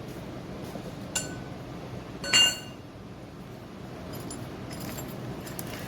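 Two metallic clinks, the first small, the second louder with a brief bright ring: metal pieces knocking together while a compressor is taken apart.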